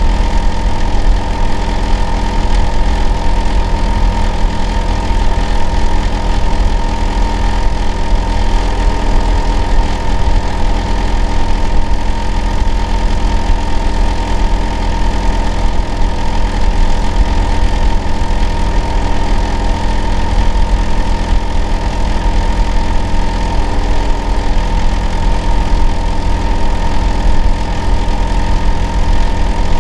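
Hitachi air-conditioner outdoor unit running: a loud, steady low hum and rumble with a constant whine on top. The uploader treats it as abnormal noise.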